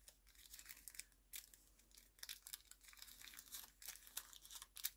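Faint, irregular rustling and crinkling of a piece of red paper being folded and handled by hand.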